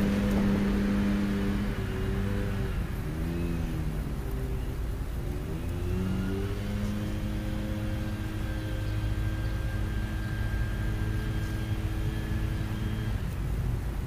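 A motor vehicle's engine running with a low rumble. Its pitch wavers up and down over the first few seconds, then holds steady and fades near the end.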